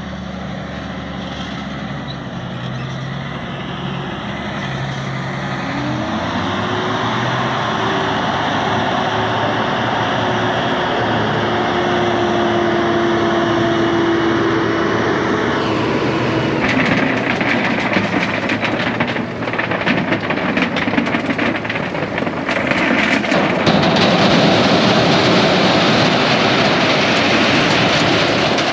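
An Usarya stone picker and its tractor running. About six seconds in a whine rises and then holds for ten seconds as the hydraulics lift the hopper. It gives way to a dense rattling clatter of stones tumbling out of the raised hopper into a trailer, loudest near the end.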